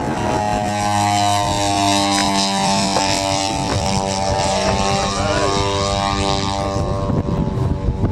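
Engines and propellers of a large radio-controlled PBY Catalina model flying boat running in flight overhead: a steady drone whose pitch shifts a few times.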